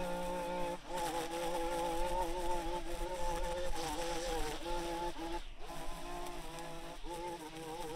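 Small gasoline engine of yard equipment running steadily, its speed wavering slightly up and down.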